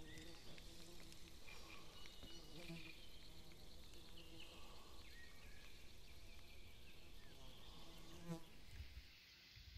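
A flying insect buzzing faintly, coming and going.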